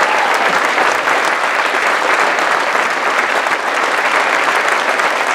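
Theatre audience applauding steadily, a dense, even clapping.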